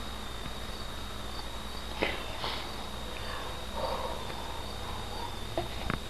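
Quiet room tone with a steady high-pitched whine under it, a short click about two seconds in, and a few faint clicks near the end.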